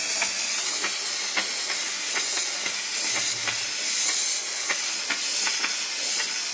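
Black+Decker steam mop's grout nozzle hissing steadily as it jets steam along a tile grout line, with small irregular clicks through the hiss.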